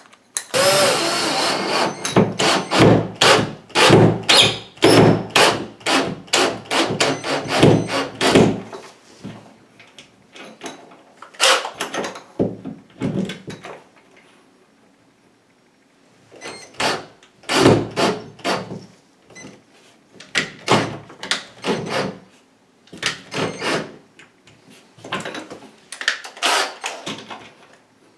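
Cordless drill-driver with a socket bit driving a screw through a radiator wall bracket into the wall, with many sharp knocks. It runs in one long burst of about eight seconds, then in several shorter bursts.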